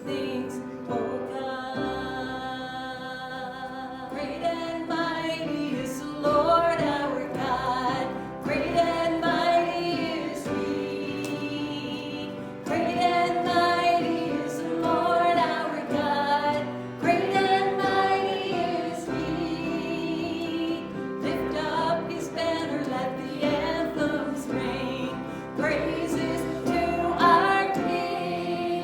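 Church worship music: a song with singing over instrumental accompaniment.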